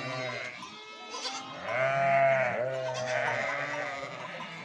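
A flock of sheep bleating, several calls overlapping one another, the loudest about two seconds in.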